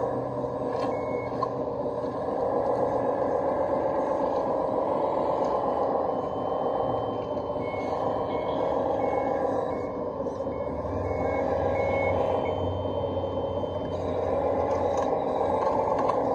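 1/14-scale Komatsu WA470 RC wheel loader working, its mechanical whine rising and falling in pitch as it digs and moves. About halfway through, its reversing alarm beeps about twice a second for some five seconds as it backs away from the pile.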